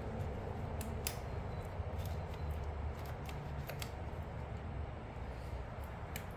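Scattered small clicks and taps from handling the trimmer's carburetor and throttle parts, which keep catching on something, over a steady low hum.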